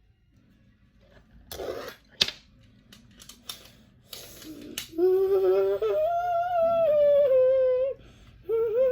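A few short plastic clicks and rustles of LEGO bricks being handled, then, about five seconds in, a child humming a tune in long held notes, with a short break near the end before the humming starts again.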